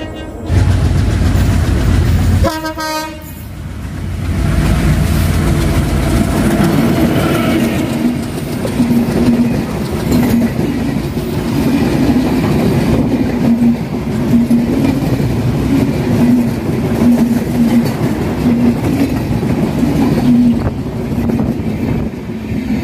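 Passenger train running past close by: a steady loud rumble of the coaches with a repeated clatter of wheels over the rail joints.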